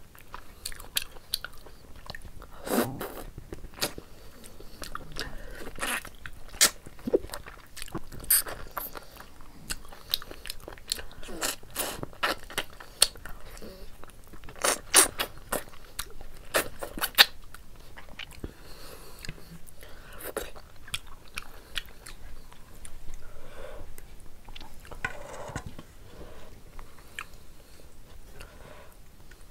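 Close-up mouth sounds of a person eating mutton curry and rice by hand: chewing with many sharp clicks and smacks. They are thickest in the first half and softer after about eighteen seconds.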